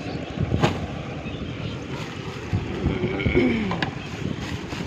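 Steady wind buffeting the microphone over a small boat on the water, with a sharp knock under a second in and rustling and thuds as a collapsible trap net is hauled aboard and shaken out.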